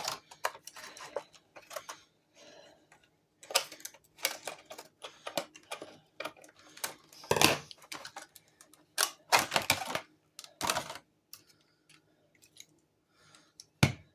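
Irregular clicks, knocks and rustles from a Hart heavy-duty all-metal staple gun and its packaging being handled and opened, with the loudest bursts in the middle.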